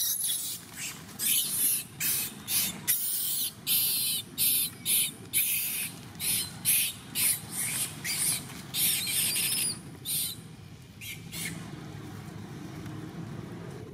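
Macaque screaming: a run of short, shrill cries about two a second, one bending in pitch, that stops about eleven seconds in.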